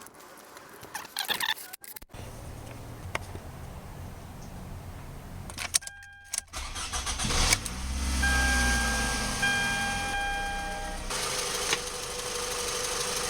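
Toyota Camry's 2.4-litre 2AZ-FE four-cylinder engine cranking and starting about seven seconds in, then idling fast on freshly replaced spark plugs, fitted to cure a cylinder 3 misfire. A steady electronic tone sounds over it for a few seconds.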